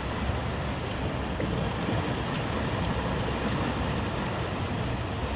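Steady rushing noise of fast-flowing river current below a pier, with a low rumble underneath.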